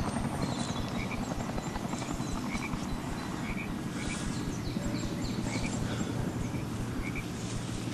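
Woodland ambience: short high chirps from small animals repeat about once or twice a second over a steady low rumble.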